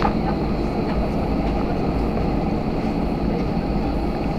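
Steady rumble of a jet airliner's engines and rolling wheels heard inside the cabin as the plane moves along the runway for take-off.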